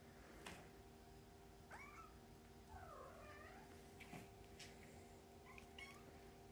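Kittens about five weeks old mewing faintly, two short calls that bend in pitch about two and three seconds in, amid soft ticks and scuffles of play on a rug.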